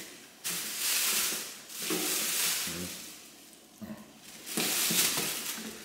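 Thin plastic shopping bags rustling and crinkling as hands dig through them, in three bursts.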